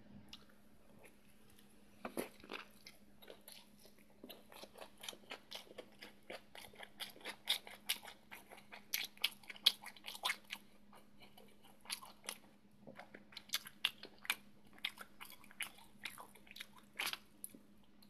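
Close chewing and crunching of a fried-shrimp hand-rolled sushi: crisp nori and breaded shrimp crackling in irregular bites, starting about two seconds in. A faint steady hum runs underneath.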